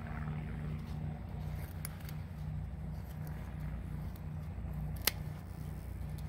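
A single sharp snip of garden shears cutting a roselle (sorrel) stem about five seconds in, with a few fainter clicks before it. Under it runs a steady low hum that pulses a couple of times a second.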